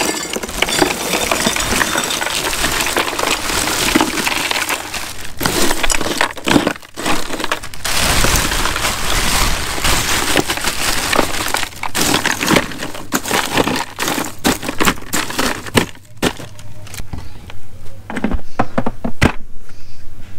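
Ice cubes poured from a bag into a plastic cooler, clattering and crunching onto glass and plastic drink bottles in several pours with short pauses between them.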